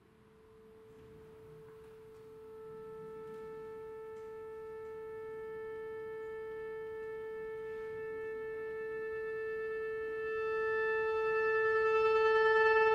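Chromatic button accordion holding one long single note that starts very softly and swells steadily louder, growing brighter as more overtones come in about ten seconds in.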